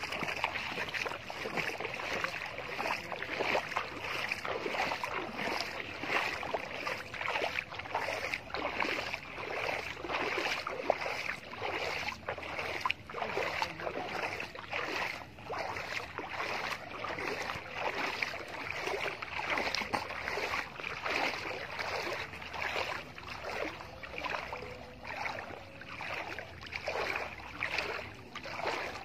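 Water sloshing and splashing in a steady rhythm of about two strokes a second, from wading through shallow floodwater while pushing a push net.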